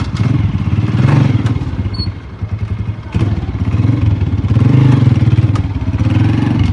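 Motorcycle engine running, its pitch rising and falling as the throttle is worked, with a few light clicks.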